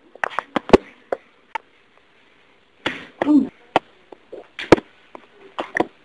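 About a dozen sharp taps and knocks at irregular intervals, some of them loud, with a short bit of voice about three seconds in.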